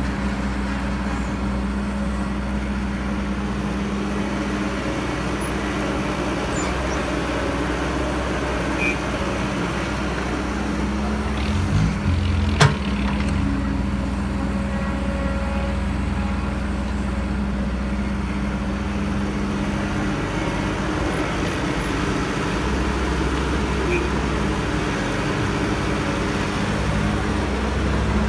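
Diesel engine of heavy earthmoving machinery running steadily at work, its pitch and weight shifting a little as the load changes. A single sharp knock about twelve and a half seconds in is the loudest moment.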